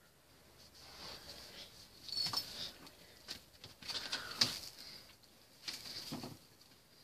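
Kittens scrabbling about, their paws scratching and rustling on newspaper and in a bowl of dirt, in a few short irregular bursts with light clicks.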